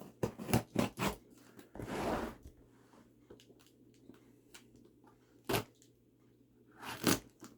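A package being handled and opened by hand: a run of clicks and knocks, a short burst of scraping noise about two seconds in, then faint ticks and two sharp knocks later on.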